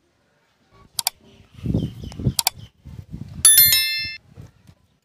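Subscribe-button overlay sound effect: two sharp mouse-click sounds, then a bright bell-notification ding that rings for under a second and is the loudest part, over a low fluttering rumble.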